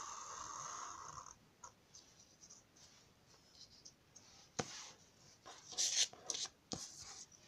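A Sharpie marker drawing a long straight line on paper makes a steady scratchy sound that stops about a second and a half in. Later come a sharp click and a cluster of short rustles and knocks as the paper is handled, loudest about six seconds in.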